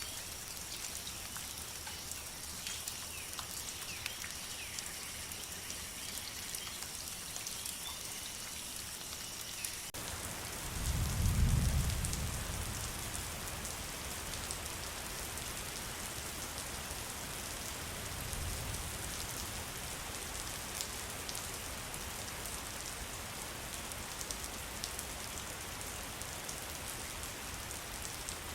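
Steady rain falling. About ten seconds in, the sound changes abruptly to denser rain, and a low rumble swells and fades soon after, with a fainter rumble a few seconds later.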